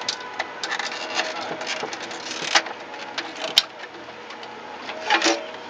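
Scattered clicks, knocks and light scrapes of hands handling parts inside an open desktop computer case, with one sharp click about three and a half seconds in and a short run of scraping clicks near the end, over a faint steady hum.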